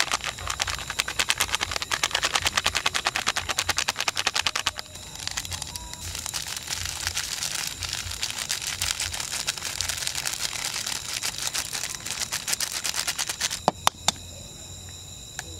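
Rapid dry clicking and rattling, many strikes a second, as seasonings are shaken into a mixing bowl, in two long bouts with a short lull about five seconds in. Near the end, two sharp knocks as an egg is tapped on the bowl to crack it.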